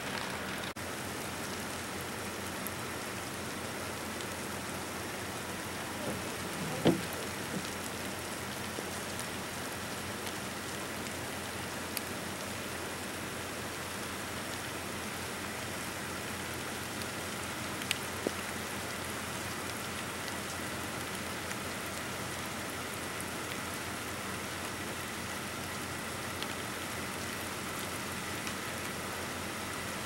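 Steady hiss of outdoor background noise at a construction site, with a few faint ticks and one louder knock about seven seconds in.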